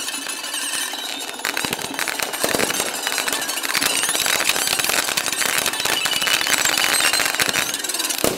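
Aerial fireworks going off in a dense, continuous run of rapid pops and crackles, getting a little louder about two and a half seconds in.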